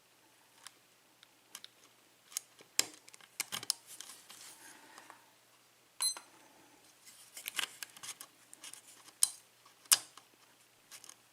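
Steel lock pick and tension wrench working the pins of a 6-pin pin tumbler lock cylinder: scattered irregular metal clicks and scrapes as the pins are lifted and set. About six seconds in, a sharp click gives a brief metallic ping.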